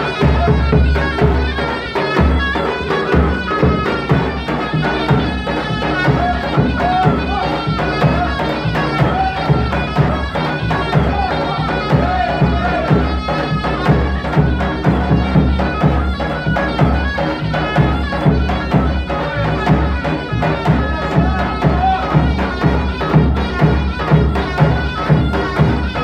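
Davul and zurna playing a Bayburt bar dance tune: a reedy, wavering melody over a steady drum beat.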